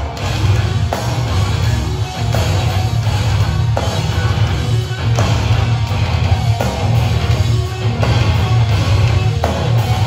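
Live metalcore band playing loud, with distorted electric guitars, bass and drums pounding in a steady pulse, heard from within the crowd.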